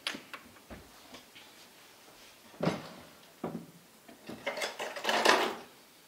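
Light clicks and knocks of laptop parts and tools being handled: a few faint clicks, two sharper knocks about two and a half and three and a half seconds in, then a rattling, scraping clatter about a second long near the end, the loudest of them.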